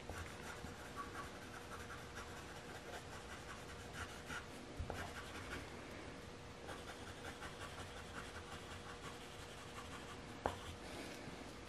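Gray coloured pencil lightly shading on paper: a faint, soft, uneven scratching of pencil strokes. A single light tap about ten and a half seconds in.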